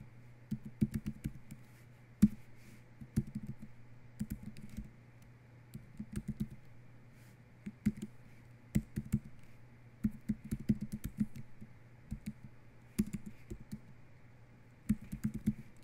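Typing on a computer keyboard: keystrokes come in quick runs of clicks with short pauses between them, over a low steady hum.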